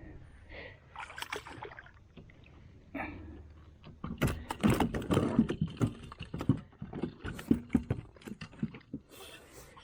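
Rapid, irregular splashing and knocking from about four seconds in, lasting some five seconds: a hooked catfish thrashing at the surface against the side of a fishing kayak as it is landed.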